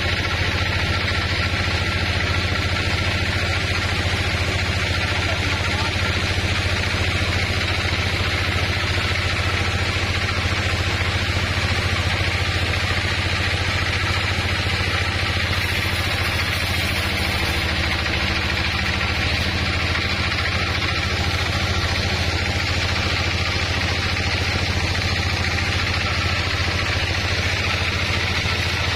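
Large band sawmill running with a steady, unchanging mechanical hum.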